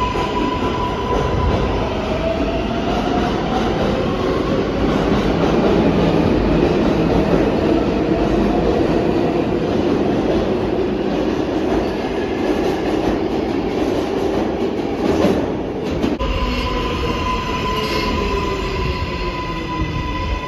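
New York City Subway R142A train running along the station platform: a loud, steady rumble of steel wheels on rail. A steady high whine is heard at the start and returns near the end as the rumble eases.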